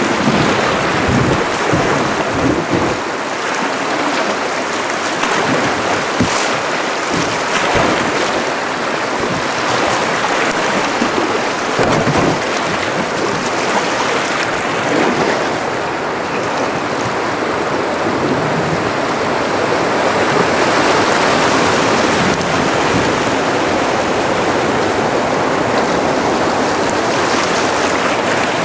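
Rushing whitewater of a river rapid around a canoe: a loud, steady roar of churning water, with a few short, sharper hits now and then.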